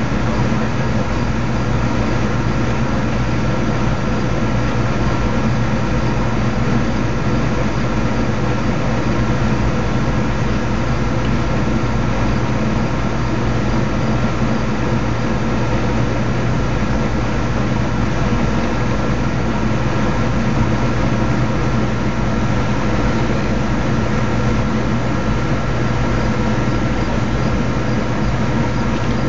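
Steady machine hum, like a motor or engine running without change, with a constant high tone on top of a low drone.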